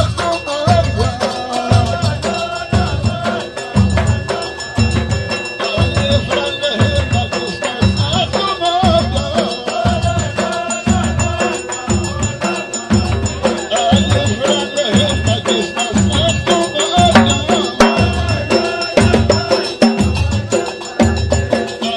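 Ahwach music: frame drums and a large double-headed drum beating a steady, even rhythm, with a group of men's voices chanting over it.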